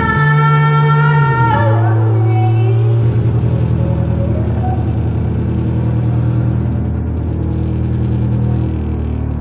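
Live band's amplified instruments sustaining a drone: a held high note with a bright edge cuts off about one and a half seconds in, leaving a loud, low steady drone that wobbles.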